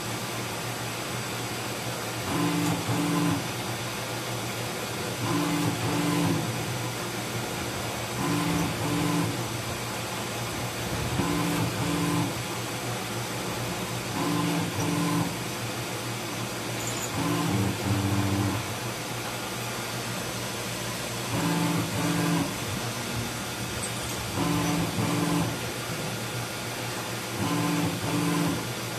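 CNC machining center drilling with flood coolant: a steady hiss of coolant spray and machine running, with a humming burst from the spindle and drill in pairs of short pulses about every three seconds, repeating as the drill cycles into the workpiece.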